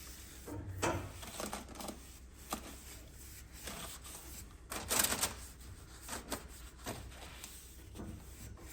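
Cloth rag rubbing and wiping along steel roll cage tubing in irregular scrubbing strokes, the strongest stroke about five seconds in.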